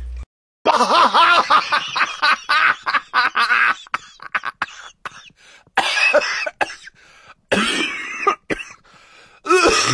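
Repeated coughing: a dense run of hacking coughs for the first few seconds, then three shorter bouts spaced a second or two apart.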